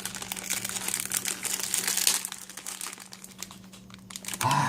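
Plastic instant-noodle wrapper crinkling as it is handled and opened. The crackling is dense for about the first two seconds, then thins to a few scattered crackles.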